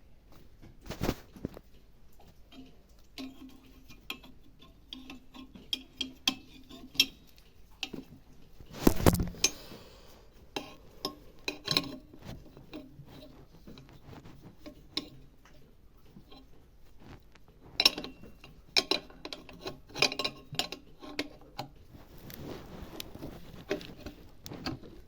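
Metal tools and parts clinking, tapping and knocking during hands-on mower repair work, with heavier knocks about one second in and about nine seconds in.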